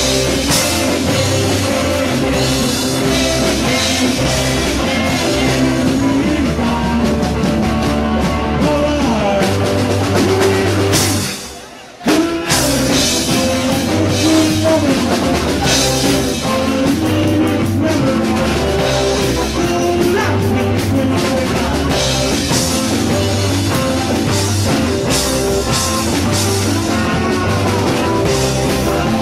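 Live rock band playing, with electric guitars, bass and drum kit. About eleven seconds in, the music fades down over about a second, then cuts back in abruptly.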